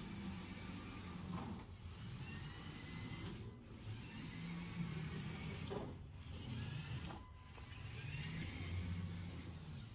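Lego Technic RC buggy's electric motors and gearing whirring as it drives, a faint whine rising and falling with the throttle and broken by several short pauses.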